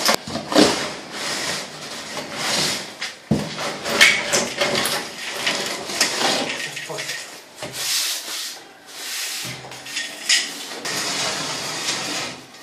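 A plastering tool scraping and rubbing over fresh cement render on a wall, in repeated irregular strokes with a few sharper knocks.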